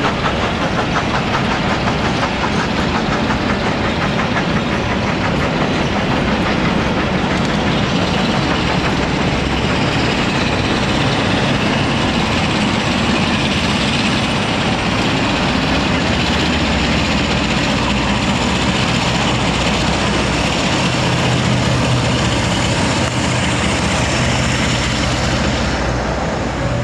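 A train of passenger coaches rolling past at close range, the wheels clicking regularly over the rail joints, giving way later to a steadier low rumble as the end of the train passes.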